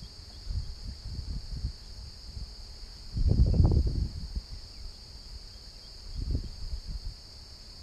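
A steady high-pitched chorus of insects, with low rumbling gusts on the microphone, the loudest lasting about a second from about three seconds in.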